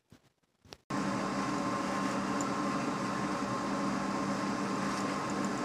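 A steady mechanical hum and whir from a small electric motor or fan, with a constant low tone and a higher whine, starting about a second in after a moment of silence.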